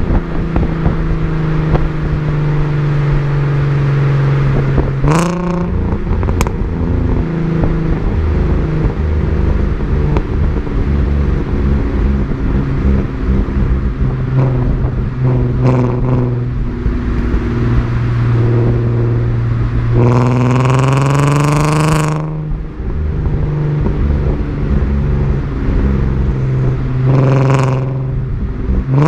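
Audi/VW car with a DSG dual-clutch gearbox accelerating and changing gear, the engine revving and dropping at each shift. Short sharp cracks from the exhaust come at several of the upshifts, the so-called DSG fart.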